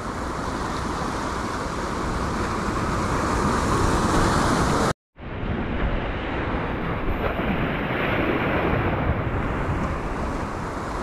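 Sea waves surging and washing over rocks, with wind on the microphone. The sound drops out for a moment about halfway through.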